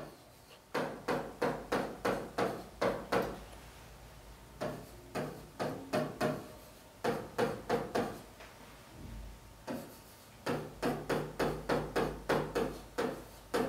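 Marker pen writing on a whiteboard: quick series of short strokes in several bursts, with brief pauses between them.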